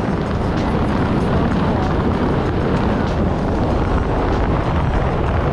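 Steady wind rushing over the camera microphone as the tandem parachute descends.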